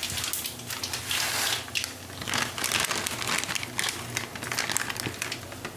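Mustard seeds, dried red chillies and urad dal crackling and sizzling in hot oil in a kadhai, with many small irregular pops: a tadka being tempered.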